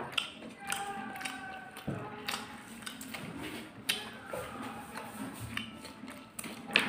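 Close-up eating sounds: strands of instant noodles being slurped and chewed, with irregular wet mouth clicks and small taps, the loudest near the end.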